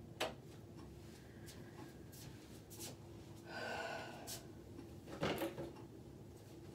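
A sharp click just after the start, then a few lighter clicks, a short rustle and a louder knock about five seconds in, over a faint steady hum. These are the small household handling sounds of a door and light switch.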